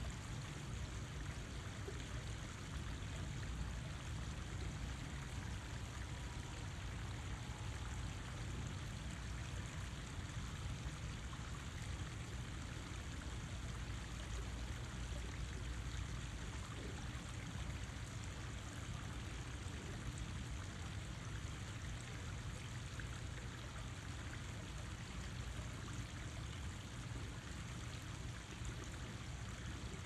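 Water running steadily, an even unbroken rush.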